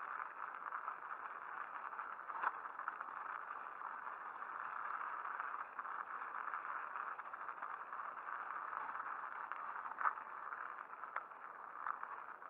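Mountain bike ridden over rough, wet and icy dirt: a steady rush of tyre and wind noise with light rattling from the bike, and two sharp knocks, about two and a half seconds in and near ten seconds.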